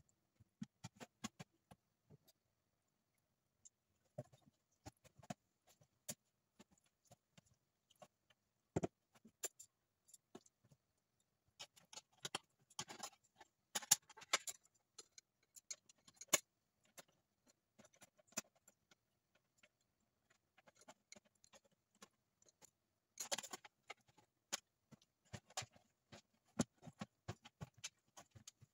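Quiet, scattered clicks and taps from hands handling raw whole chickens on a baking tray, with two short stretches of louder rustling and scraping, around halfway through and again near the end.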